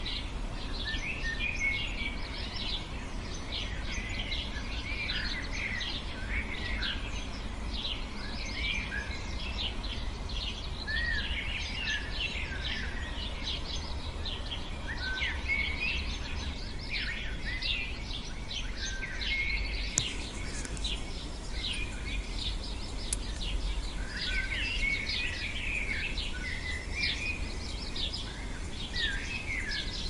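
A dense chorus of small songbirds chirping and singing, many short high calls overlapping without a break, over a low steady rumble.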